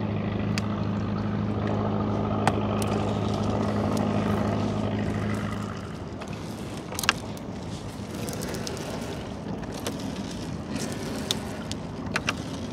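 A small boat's engine running at a steady low hum, which cuts off about six seconds in. A few sharp knocks follow, the loudest about a second after it stops.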